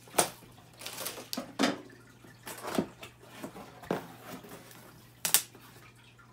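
Cardboard juicer box and its plastic packing straps being opened by hand: a run of sharp snaps, knocks and scraping rustles as the straps come off and the cardboard sleeve slides off the box, the loudest snap about five seconds in.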